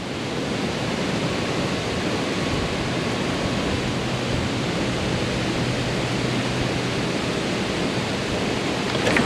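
Creek water rushing, a steady even rush with no breaks.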